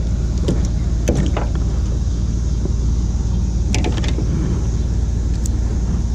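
Small Mercury 2.5 hp outboard motor running steadily at low speed, with a few short splashes and knocks as a striped bass is lifted out of the water by hand.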